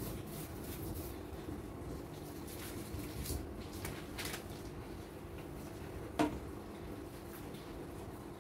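Hand rubbing oil over a sheet of butter paper: soft rustling and brushing of the paper, with a couple of brief scratchy rustles. About six seconds in comes a single sharp knock with a short ring, a bowl set down on the counter.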